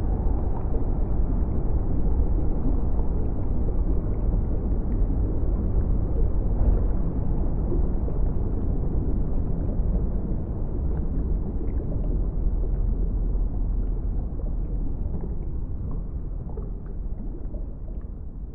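A low, steady rumble with faint scattered clicks, slowly fading out over the last few seconds.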